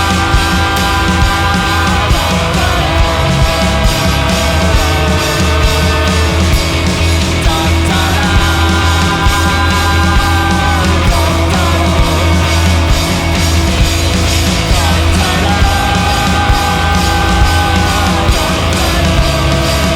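Live rock band playing loud, dense music: held chords that shift every few seconds over a steady drum beat.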